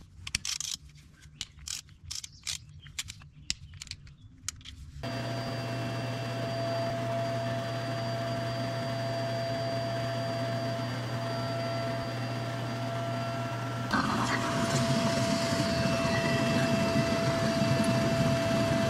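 A few light clicks and taps, then about five seconds in a vacuum switches on and runs steadily with a constant hum and whine, growing louder about two-thirds of the way through.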